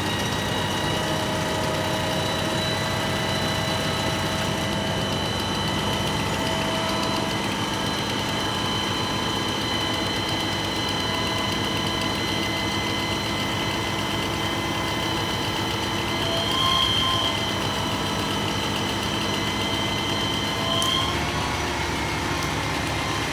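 Crane truck's engine running steadily with high whining tones over it. It swells briefly about three-quarters of the way through, and the high whine stops a couple of seconds before the end.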